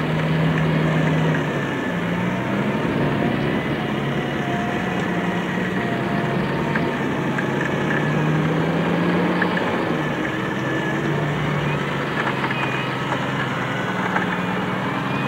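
Off-road Jeep's engine running under load as it crawls up a steep slope, engine speed rising and falling several times as the throttle is worked.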